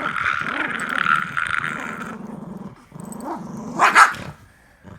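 Dog growling in two rough stretches, with a short, sharp loud burst about four seconds in.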